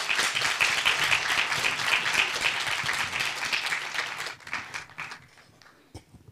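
Audience applauding, dense steady clapping that thins and dies away about four to five seconds in, leaving a few stray knocks near the end.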